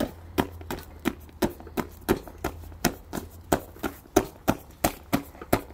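Boxing gloves punching an Everlast heavy bag in a steady stream of thuds, about three a second, as the boxer keeps a steady pace through a one-minute bag drill.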